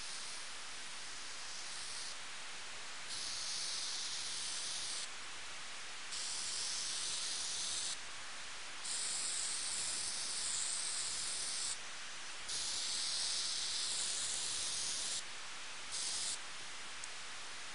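Aerosol shaving cream can spraying in about five hissing bursts of one to three seconds each, with short gaps between them, over a steady background hiss.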